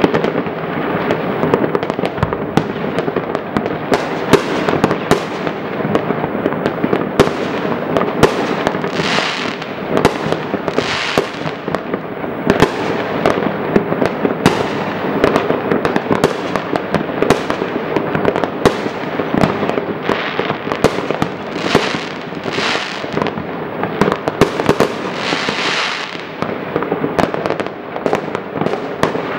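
Many fireworks going off at once across a town: a dense, continuous rattle of distant bangs and crackles with sharper pops standing out, and several brief hissing sounds.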